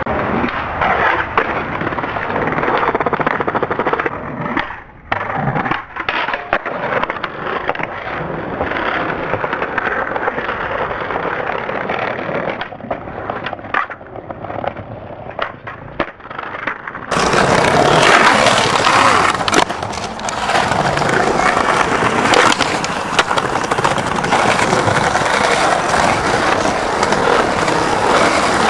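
Skateboard wheels rolling on pavement, with sharp tail pops, board clacks and landings.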